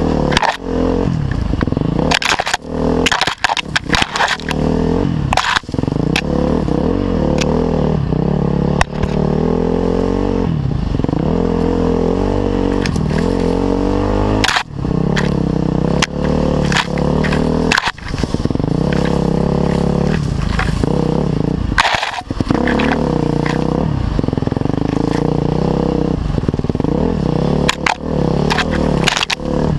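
Off-road motorcycle engine running hard, its pitch rising and falling with the throttle and dropping off briefly several times, with sharp knocks and scrapes throughout.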